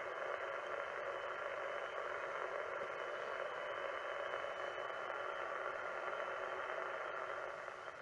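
Mini SW 2018 HF transceiver's receiver hiss from its speaker: steady static filtered to a narrow voice-width passband, fading out near the end. The receiver is working again after repair.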